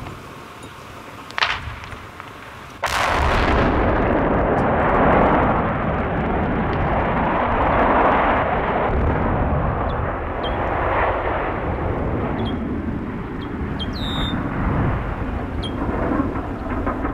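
Explosive demolition of a power plant and its 500-foot smokestack. A short crack comes about a second and a half in, then a sudden loud blast about three seconds in, followed by a long, continuous rumble as the structure comes down.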